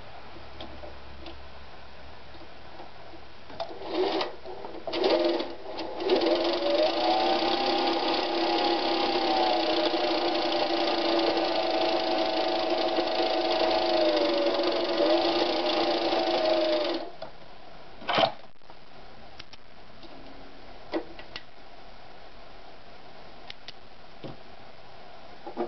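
Merritt electric sewing machine's motor running, run by its foot pedal to wind thread onto the bobbin. Two brief starts come first, then it runs steadily for about eleven seconds, its pitch wavering slightly with pedal pressure. It stops suddenly, and a sharp click follows about a second later.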